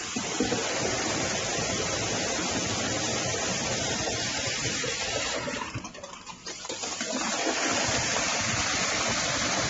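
Wet concrete gushing from a line pump hose into foundation wall forms: a steady rushing that drops away briefly about six seconds in, then resumes.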